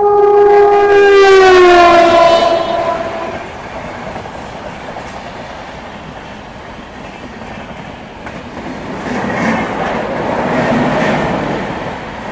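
An express mail train on the next track sounds its locomotive horn in one long blast that drops in pitch as it rushes past. The horn is followed by the steady rumble and clatter of the two trains' wheels, which swells again near the end.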